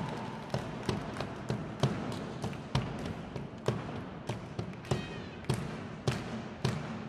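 Marching bass drum struck with mallets in a steady beat, about two strong hits a second with lighter strokes in between.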